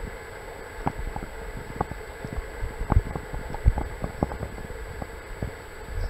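Muffled rush of stream water heard through an underwater camera, with frequent irregular low thumps and a few sharper clicks.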